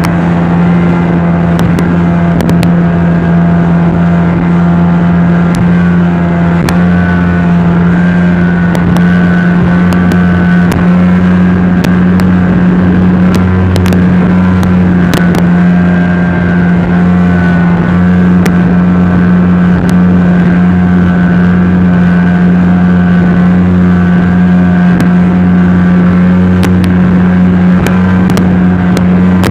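Speedboat engine running under way, heard from on board: a loud, steady drone that holds one pitch throughout.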